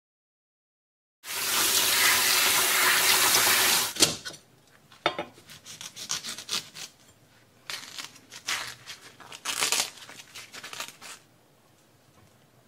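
Water runs from a tap in a steady rush for nearly three seconds and stops. A kitchen knife then cuts a whole bamboo shoot on a wooden board, with a few sharp knocks followed by short rasping strokes as the blade slices through the tough husk.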